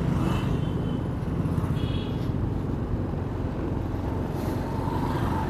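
Steady low rumble of a scooter riding slowly in traffic: its engine running with wind noise on the microphone. A short faint high tone sounds about two seconds in.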